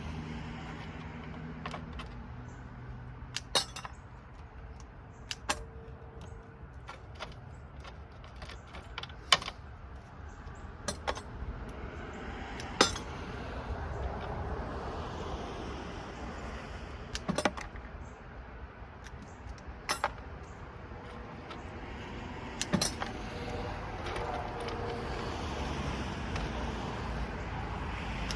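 Small metal parts from dismantled light sockets clinking as they are sorted and tossed by hand. There are about a dozen separate sharp clinks at irregular intervals, over a steady low background noise.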